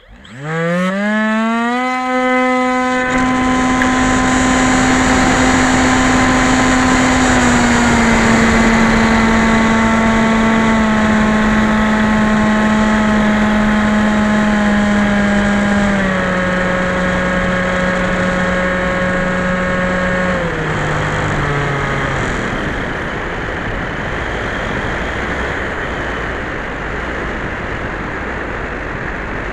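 The electric motor and propeller of a Skyhunter FPV plane spooling up from standstill to a steady high whine. The motor is throttled back in steps, with the pitch dropping a few times, and cuts off about 22 seconds in. After that only a steady rushing noise remains.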